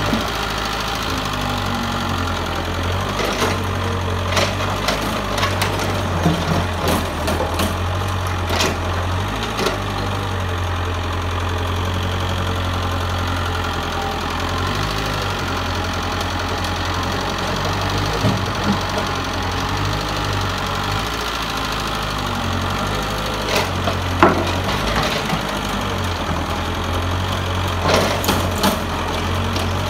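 Mitsubishi excavator's diesel engine running steadily under work, with scattered sharp clanks and knocks from the machine working.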